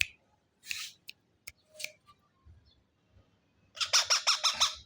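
Baby parrot squawking: a few short, scattered calls, then a quick run of about eight squawks near the end.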